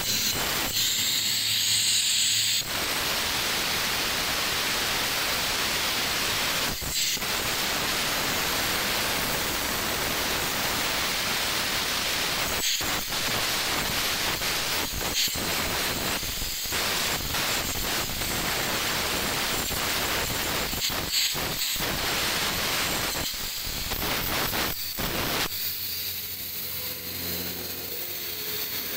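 Handheld angle grinder grinding a white stone statue: a steady harsh hiss of disc on stone, broken by several brief dips. The sound changes character about two and a half seconds in and again near the end.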